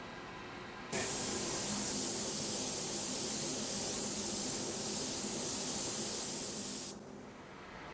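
Compressed-air paint spray gun spraying in one continuous pass of about six seconds, a loud even hiss that starts and stops abruptly as the trigger is pulled and released.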